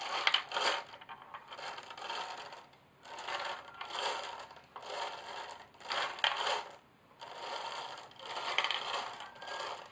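Rattling and clattering of small hard objects in about eight separate bursts, each lasting under a second, with short gaps between them.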